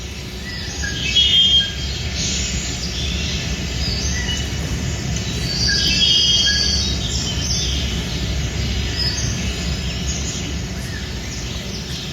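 Birds chirping and calling in a rainforest-style ambience, over a steady low hum.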